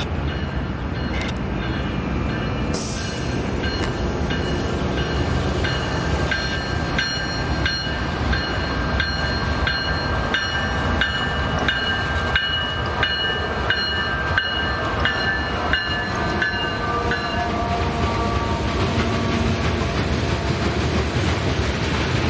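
Freight train cars rolling past over the rails, with a steady rumble and rail-joint clicks. High squealing from the wheels runs for much of the time and dies away near the end.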